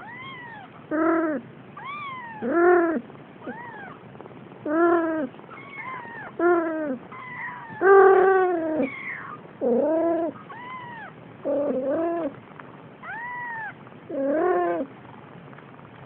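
Four-week-old Siamese kittens meowing over and over, about one short call a second, each rising and falling in pitch; some calls are high and thin, others lower and fuller.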